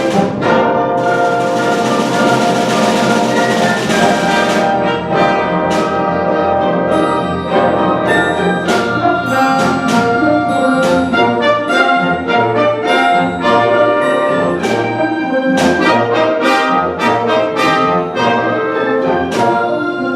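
Symphony orchestra playing festive music, with the brass section prominent over strings and percussion.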